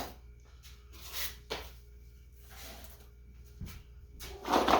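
Rustling and light handling noises of packaging as items are taken out of a shipping bag, in short scattered bursts that grow louder near the end.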